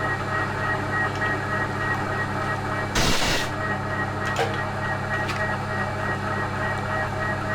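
Milling machine running with a steady hum while milling off the mangled end of a seized bolt. A short, loud burst of noise comes about three seconds in, and a couple of light clicks follow.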